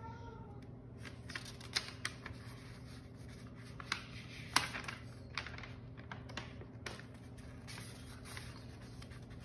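Folded sheets of paper rustling and crackling as a handmade card is handled and opened: an irregular scatter of sharp crinkles starting about a second in, the loudest about four and a half seconds in.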